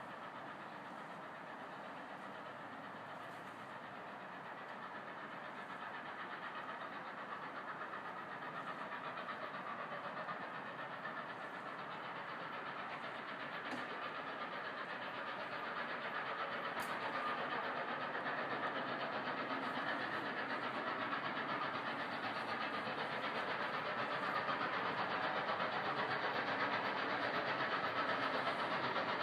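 Norfolk & Western 611, a Class J 4-8-4 steam locomotive, working hard upgrade. Its sound grows steadily louder as it approaches.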